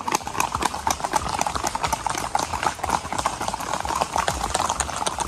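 Many hooves clip-clopping on a paved road: a group of horses and a mule walking, their hoofbeats overlapping into a dense, uneven stream of sharp clicks.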